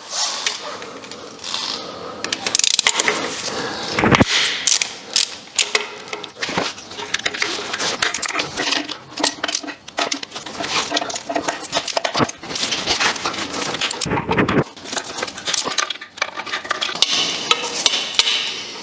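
A 12 mm wrench or socket loosening the nuts on an engine's intake manifold studs: many quick metallic clicks and clinks of the tool and nuts.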